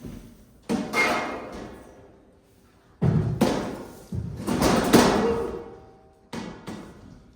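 A series of heavy thumps and knocks, about eight in irregular groups of two or three, each ringing out briefly after the hit.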